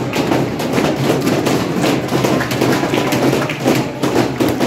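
A crowd clapping, many sharp claps over a dense din of voices, loud throughout.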